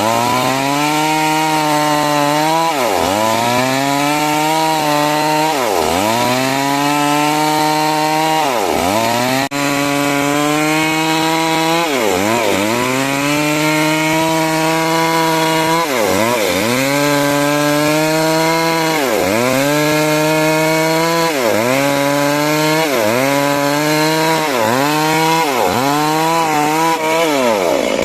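Chainsaw running under load while sawing timber into rafters, its engine pitch dipping sharply and climbing back again and again, every two to four seconds.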